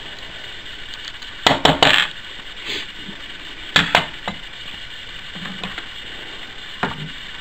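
Metal parts and hand tools clinking and clattering as a snowblower's recoil starter housing and pulley are handled: a quick run of sharp clinks about one and a half seconds in, two more near four seconds, and a fainter one near the end, over a steady hiss.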